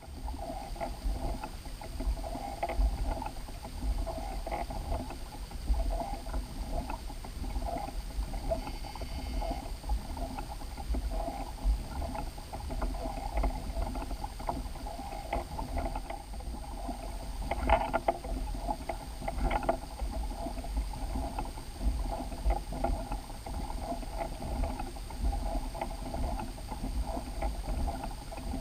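Water moving against the hull of a small fishing boat, with a steady low rumble underneath and scattered small knocks.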